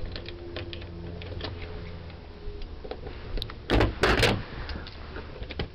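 An impact punch-down tool snapping twice in quick succession about four seconds in, seating and cutting conductors into the clips of a 66 punch-down block. Light clicks of the wires being pushed into the contacts come before.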